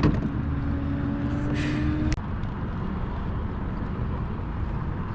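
Steady low rumble of wind and water around a fishing kayak. A steady whirring hum runs for about the first two seconds and cuts off sharply.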